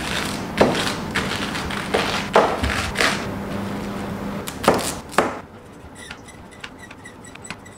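Kitchen knife chopping napa cabbage on a plastic cutting board: about six separate, irregularly spaced chops over the first five seconds, after which it goes quieter.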